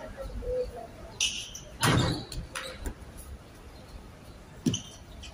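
A basketball thudding on an outdoor court during play. There are a few separate hits, the loudest about two seconds in and another sharp one near the end.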